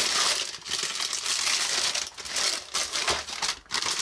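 Plastic packaging crinkling and rustling as it is handled, on and off.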